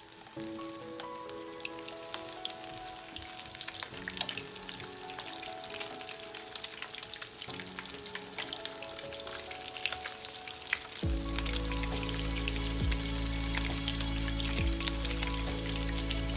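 Zucchini cheese fritters sizzling and crackling in hot olive oil in a frying pan, with many small spattering pops. Background music with held chords plays underneath and grows louder about eleven seconds in.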